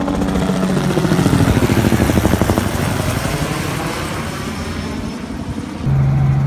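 Small helicopter flying overhead, its rotor beating in a rapid pulse that grows louder and then fades as it passes. About six seconds in it switches abruptly to the steady low drone heard inside the helicopter's cabin.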